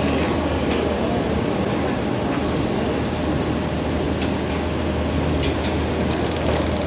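Steady machinery noise with a constant low hum, like equipment running on a workshop floor, with a few faint clicks about two and a half and five and a half seconds in.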